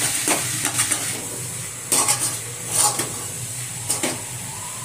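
A metal spatula stirs and scrapes a thick coconut-and-jaggery mixture in a steel kadai over a medium gas flame, with sharp scraping strokes about once a second over a steady sizzle. The jaggery is cooking down with the coconut and must be stirred constantly so it does not stick to the bottom.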